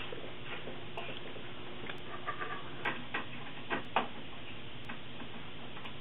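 Scattered small clicks and light knocks of hands working cables and parts inside a metal computer case, the sharpest knock about four seconds in, over a steady hiss. A faint tick recurs about once a second.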